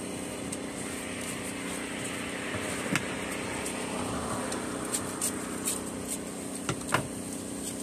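Steady hum of road traffic, with a few short sharp clicks, the first about three seconds in and more near the end.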